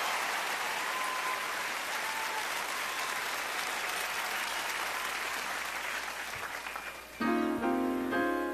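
Audience applauding, the applause slowly dying away. About seven seconds in, a Yamaha grand piano starts playing sustained chords.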